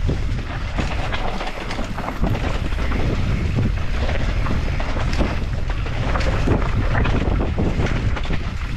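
Mountain bike riding down a rough trail, with wind rumbling on the microphone and frequent short knocks and rattles from the bike over the ground.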